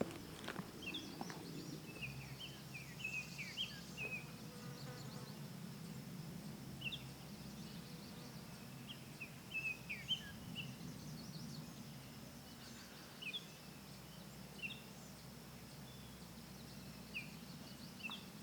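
Forest ambience: small birds give short chirps scattered throughout, over a steady low hum and a faint high insect drone. A few sharp clicks come in the first second.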